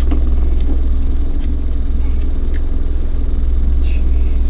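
Boat's outboard motor running steadily at trolling speed, a loud, even low rumble with a few faint clicks over it.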